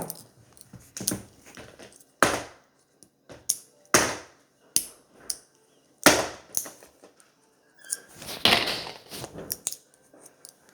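Plastic candy packaging being pried and torn open by hand: a string of irregular sharp cracks and crinkles, with a longer crackling stretch near the end.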